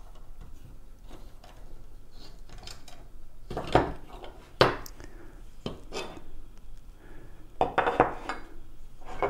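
An Allen wrench and the parts of metal CNC spiked electric-unicycle pedals clinking and scraping as a pedal is taken apart. There are a few louder sharp knocks in the middle and a cluster of them near the end.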